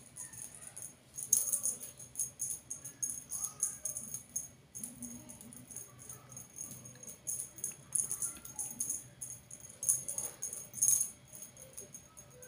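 Quick, irregular high jingling rattle of a feather wand cat toy being shaken and dangled, with uneven bursts of a few strokes at a time.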